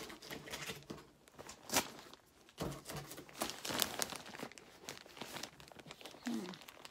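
Plastic bag crinkling and rustling as it is squeezed and its taped wrapping picked at, in irregular crackles with a couple of sharper, louder ones around two seconds in.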